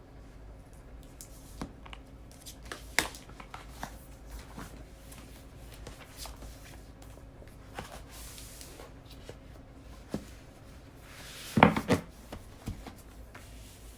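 Desk handling sounds while studying: scattered light taps and clicks of stationery and paper, a soft rustle of paper partway through, and a louder cluster of knocks about twelve seconds in.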